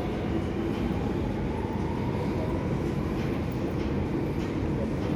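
Steady low rumble and hiss of an underground metro station platform, with a faint thin whine that drifts slightly up in pitch in the first couple of seconds and fades.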